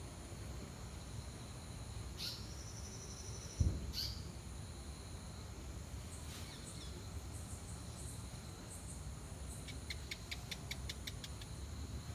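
Outdoor ambience with a steady high insect-like drone and scattered bird-like chirps, including a short buzzy trill and, near the end, a quick run of about a dozen chirps. A single low thump comes about three and a half seconds in.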